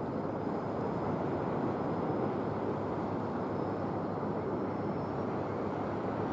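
Model A-10 Thunderbolt II jet flying overhead: a steady rushing noise, with a faint high whine that fades out about five seconds in.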